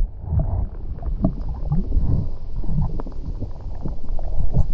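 Creek water heard through a camera held underwater: a loud, muffled low rumble of moving water with many small ticks and knocks throughout.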